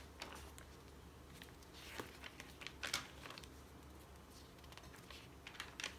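Thin Tomoe River paper pages of a thick, painted A5 journal being turned by hand: several soft rustles and paper flicks.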